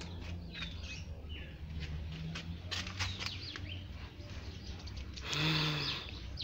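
Small birds chirping, with many short repeated calls over a low steady background hum. About five seconds in there is a brief louder noise.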